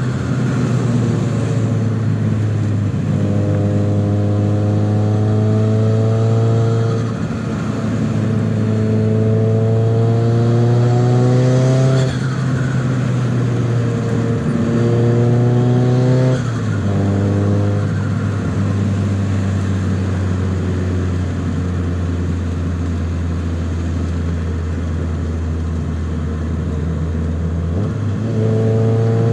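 Nissan 200SX S14a's turbocharged SR20DET four-cylinder engine pulling through several gears, its revs climbing and then dropping sharply at each shift, three times in the first half. It then settles to a steady cruising drone and picks up again near the end.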